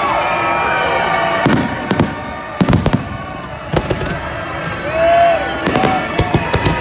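Fireworks bursting: a run of sharp bangs, several in quick succession near the end, with voices from the watching crowd in between.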